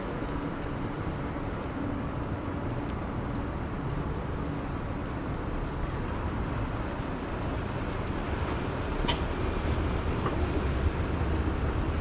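Steady city background noise, a low hum of distant traffic, with the low rumble growing a little louder over the last few seconds. A single brief high squeak about nine seconds in.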